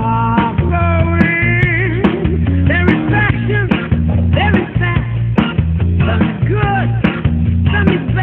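Background music: an upbeat song with a steady drum and bass groove and melodic instrument lines over it, with no singing heard.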